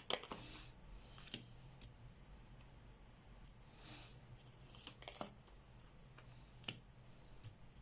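Tarot cards being handled and laid out on a table: scattered faint clicks and snaps of card edges, with a soft sliding swish about four seconds in.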